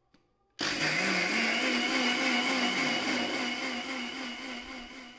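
Electric mixer grinder with a stainless steel jar, grinding soaked raw rice into batter. It switches on suddenly about half a second in with a whine that climbs briefly as it comes up to speed. It then runs steadily and grows quieter near the end.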